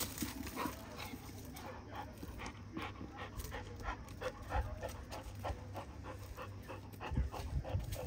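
A dog panting, short quick breaths repeating steadily.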